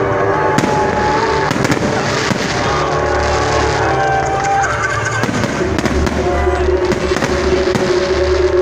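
Fireworks going off in rapid bangs and crackles, over loud music with held tones and a heavy bass.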